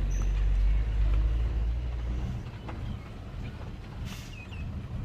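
Diesel engine of heavy earthmoving machinery running with a deep, steady rumble, louder for the first two seconds and then easing off.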